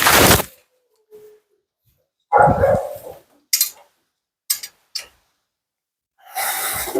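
A Siberian husky's short breathy grumbles and huffs, three of them a few seconds apart, with a few faint clicks in between.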